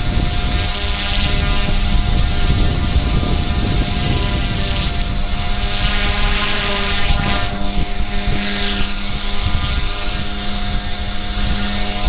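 E-flite Blade mCP X micro RC helicopter, upgraded with an HP05 brushless main motor and dual tail motors, whining steadily in flight, heard from the camera mounted on it. The pitch shifts briefly about seven seconds in.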